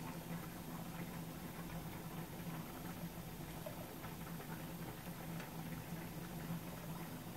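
Faint crackling of a thin egg sheet frying in a pan, over a steady low hum.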